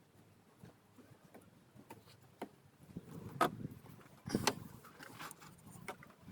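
Hand work on a car's power steering reservoir: scattered light clicks of metal and plastic parts being handled, then two sharper knocks about halfway through.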